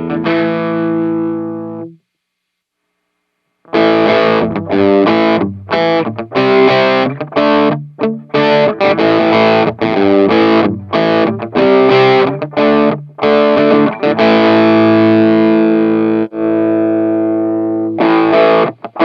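Distorted electric guitar played through an M-VAVE mini amp modeller and IR cab-simulator box, recorded direct without a traditional amplifier. A chord rings out and the sound cuts to silence for about a second and a half. Then comes a riff of short, stopped chords, with one chord held and left to fade about fourteen seconds in before the playing starts again.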